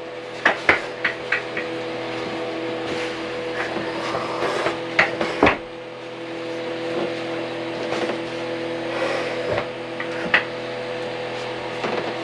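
Sharp wooden knocks and bumps as 2x4 lumber and a shelf board are handled and fitted into a wooden frame: several in quick succession at the start, a pair about five seconds in, and a couple more near the ten-second mark. A steady low hum of several tones runs underneath.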